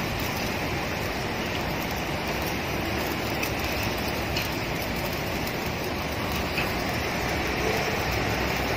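Steady rushing noise of background machinery, with a couple of faint ticks about three and a half and four and a half seconds in.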